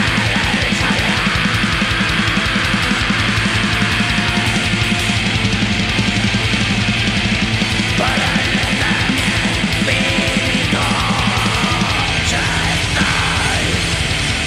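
Black metal: heavily distorted electric guitars over fast, even drumming with a rapid low kick-drum pulse.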